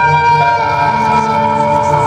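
Live concert music from the stage sound system: an instrumental passage of long, held notes with no singing.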